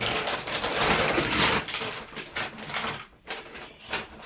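Crinkly rustling of packaging being handled: dense, steady rustling for about two seconds, then scattered short crackles.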